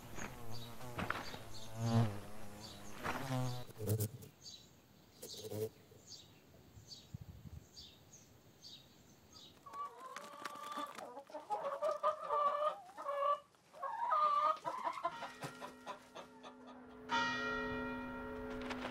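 Hens clucking and a rooster crowing, with a run of short high chirps repeating about twice a second in between. A steady ringing tone with several pitches comes in near the end.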